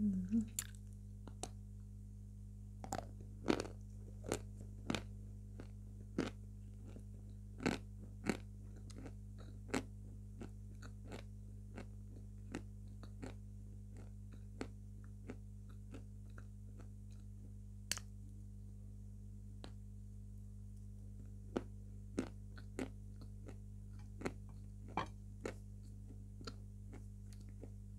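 Close-miked biting and chewing of a block of edible chalk: a series of short, sharp crunches, sometimes two or three a second and at times sparser, over a steady low hum.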